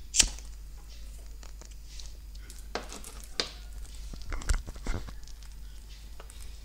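A sharp click, then crinkling and rustling of a small plastic zip bag with a few light knocks, as a circuit board is handled and slipped into the bag. A low steady hum runs underneath.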